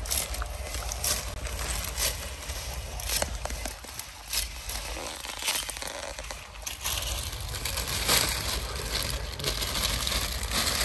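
Crunching steps at about one a second, over a steady low rumble.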